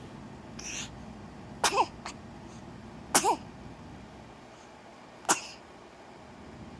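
Newborn baby hiccuping: three sharp little hiccups a second and a half to two seconds apart, each with a tiny squeak of voice, and a fainter sound before the first.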